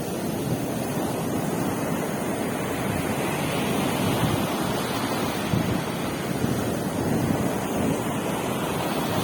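Sea surf washing onto a beach, a steady rush of waves with small surges, mixed with wind buffeting the microphone.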